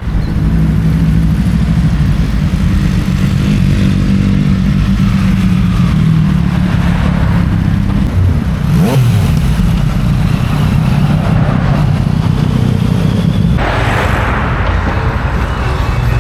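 Motorcycle engine running close by, loud and steady, with a brief rise and fall in pitch about nine seconds in. A hissier rushing noise joins near the end.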